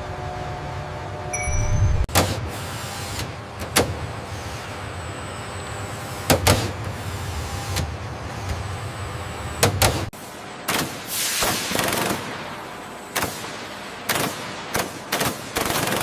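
Factory machinery running with a steady low hum and a few sharp metallic knocks. About ten seconds in the hum drops away, and a quick series of short hissing bursts follows.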